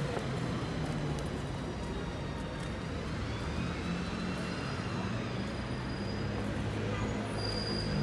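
Steady city traffic noise: vehicle engines humming low on the road beside the walkway.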